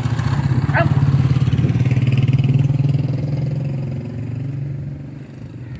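An engine running steadily, getting louder about a second in and fading away after about four seconds.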